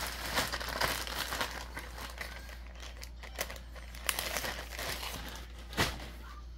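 Plastic mailer bag crinkling and rustling as it is handled and pulled open, with a few sharper crackles along the way.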